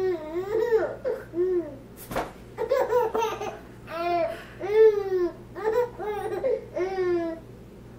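Baby laughing in a string of short, high-pitched bursts, with a single sharp click about two seconds in.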